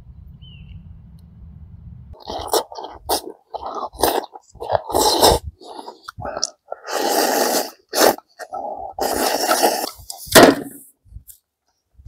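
A man eating close to the microphone: a run of short slurping, chewing and breathing noises starting about two seconds in, the loudest near the end. A faint low rumble comes before them.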